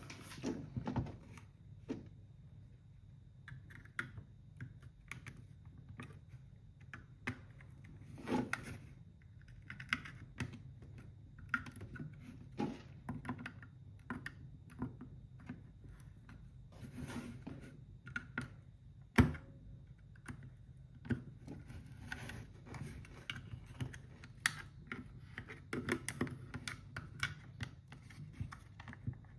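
Irregular clicks, taps and light scrapes of hands and tools working on a Ryobi battery pack's plastic case, with one sharper click about 19 seconds in.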